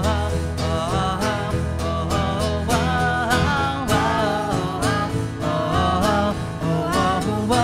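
Live worship band music in an instrumental break between sung lines: strummed acoustic guitar and cello under a bending melody line, with a steady low accompaniment.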